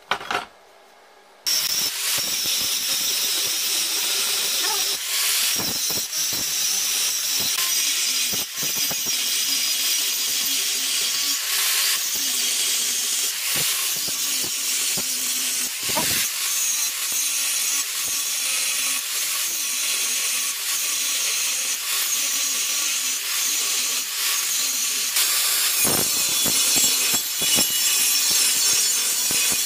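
An angle grinder with a thin abrasive cut-off disc cutting through a rectangular steel tube, a steady high-pitched grinding hiss that starts about a second and a half in, after a couple of brief knocks.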